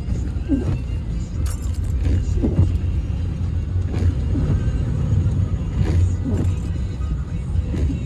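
A car running, a steady low engine and road rumble, with music playing in the background.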